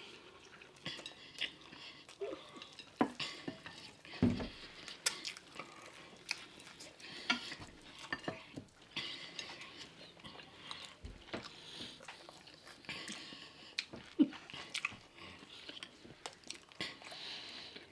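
Eating at a table: scattered clicks and clinks of cutlery and dishes mixed with close-up chewing and food handling.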